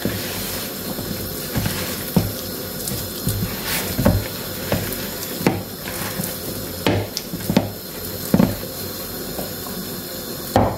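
Hands mixing and pressing crumbly dough in a plastic bowl: soft, irregular knocks of the dough and hands against the bowl every second or so, over a steady hiss.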